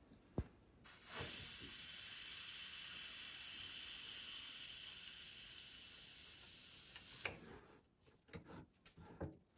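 Hot brass branding iron hissing as it burns a maker's mark into a walnut end-grain cutting board. The hiss starts about a second in, fades slowly and stops a little after seven seconds, followed by a few faint knocks.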